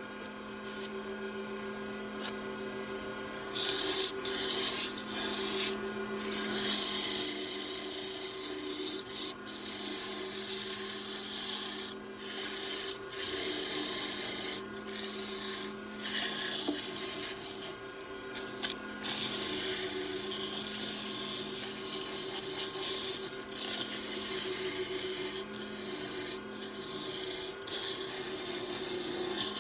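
Wood lathe running with a steady hum while a hand tool works the spinning wood, a hissing scrape that starts about four seconds in and comes in passes of a few seconds with short breaks between them.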